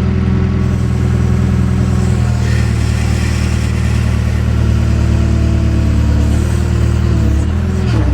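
JCB backhoe loader's diesel engine running steadily while digging, with a slight dip and wobble in pitch near the end.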